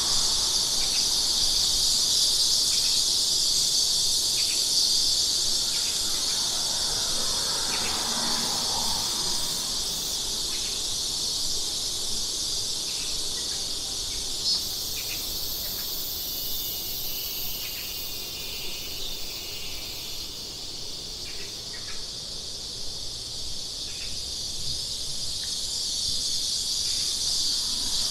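A chorus of cicadas buzzing steadily at a high pitch, with a few short faint chirps over it.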